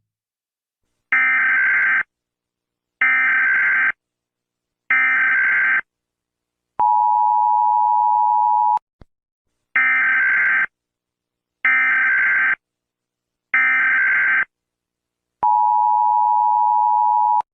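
Emergency Alert System tones: three one-second bursts of screechy digital SAME data, then about two seconds of the steady two-note attention tone. The whole sequence then repeats once.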